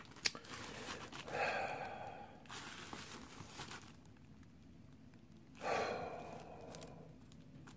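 A person breathing out twice in long, nervous sighs, about a second and a half in and again near six seconds, with the crinkle of a plastic bag wrapped around a boxed action figure being handled between them.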